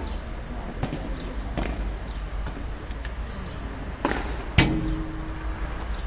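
Padel rally: sharp pops of the ball struck by solid paddles and bouncing, a few seconds apart. The loudest knock comes about four and a half seconds in, with a short ring after it.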